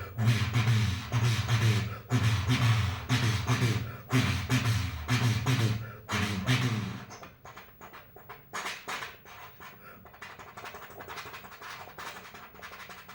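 Vocal mimicry of a steam train crossing a bridge, made by mouth: rhythmic chugging over a deep hum, in pulses about once a second. About seven seconds in it fades down to faint clicks.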